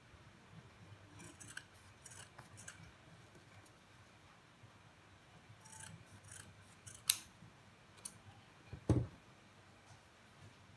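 Small steel craft scissors snipping through felt in short runs of cuts, with a sharp click about seven seconds in. A dull thump comes near the end.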